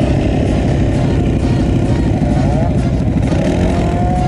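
Several quad bike (ATV) engines running at idle and low speed, with a couple of short rising revs in the second half.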